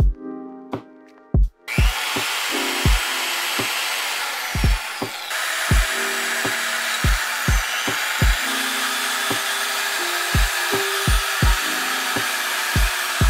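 Electric drill spinning a brass wire wheel brush against a rusty steel disc brake rotor, scouring the rust off with a steady hissing grind that starts about a second and a half in. A lofi beat with regular kick-drum thumps plays throughout.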